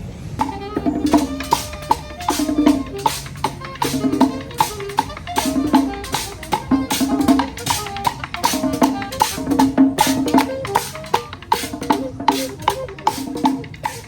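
Music with a busy beat of drums and percussion under a repeating melodic line, starting about half a second in and stopping near the end.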